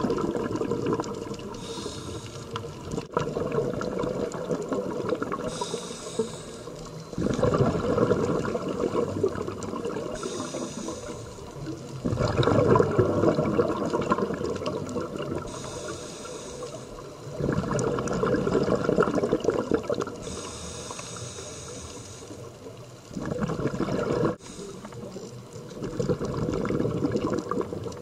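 Scuba diver breathing through a regulator underwater: about five breaths, each a short hiss on the inhale followed by a longer rush of exhaled bubbles.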